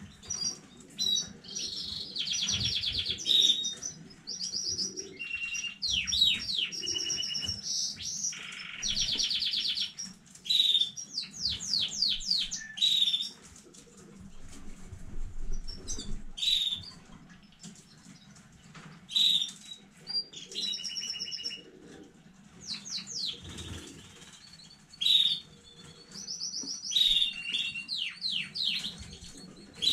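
Domestic canary singing: long fast trills of rapidly repeated notes, sweeping notes and chirps, with a pause about halfway through and another shorter one later.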